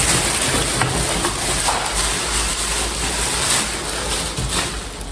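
Steady rustling and crinkling noise of items being handled close to the microphone, with a few small clicks.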